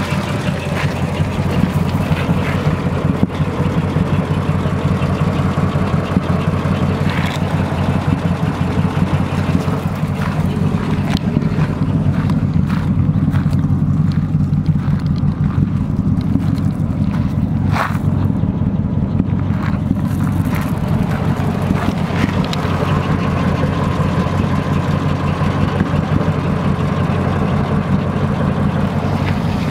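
1936 Ford pickup's flathead V8 idling steadily, heard close to the undercarriage and the chrome tailpipe of its dual exhaust, a fast even pulsing with no revving.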